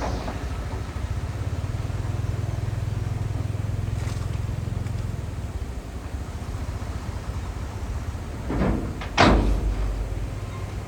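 Heavy diesel engine of earthmoving machinery running steadily. Two short, louder noisy bursts come near the end; the second is the loudest.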